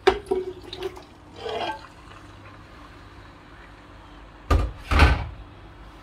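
Wet chunks of raw beef tipped from a colander into a pot: a few clanks and a scrape in the first second, a shorter slide at about a second and a half, then two heavy wet dumps near the end.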